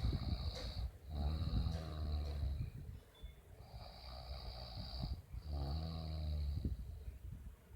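A person snoring loudly in sleep: two long, low, rough snores about four seconds apart, with a hissing breath between them.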